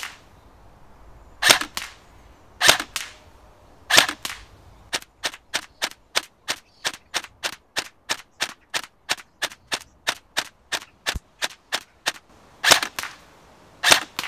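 KWA ERG electric recoil airsoft rifle firing BBs on semi-auto with sharp cracking shots. A few spaced shots are followed, about five seconds in, by a rapid even string of about four shots a second, then a few more spaced shots near the end.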